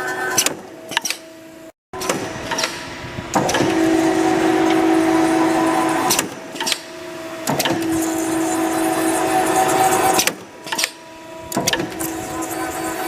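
Automatic wire thread-rolling machine running through its work cycles: a steady motor hum that swells for a couple of seconds at a time, broken every few seconds by bursts of sharp mechanical clicks and clacks. The sound cuts out briefly about two seconds in.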